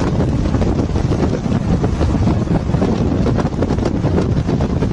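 Wind buffeting the microphone over the steady rumble of road and engine noise from vehicles moving alongside each other.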